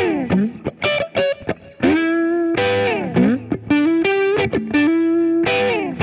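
Intro music on distorted electric guitar: short choppy notes with sustained ones between, and two long slides falling in pitch, near the start and about halfway through.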